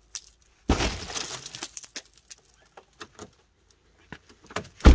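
Ice being cracked and broken. A sharp crack about a second in is followed by a crackling clatter of pieces, then a few small ticks, and a louder crack near the end.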